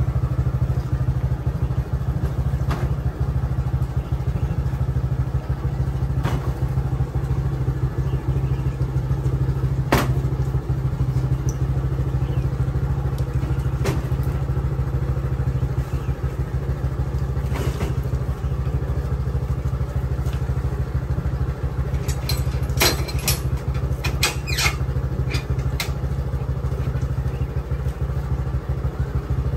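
Motorcycle engine idling steadily with a low hum, with scattered knocks and clatter as pomelos are dropped into the metal cage crate of its sidecar cart, most of them coming close together near the end.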